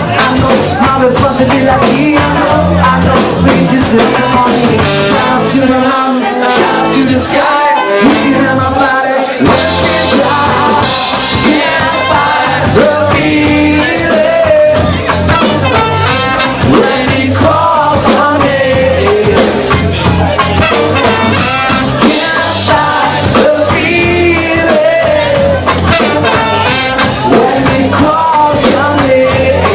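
Ska-punk band playing live: singing over drums, bass, guitar and horns, loud throughout.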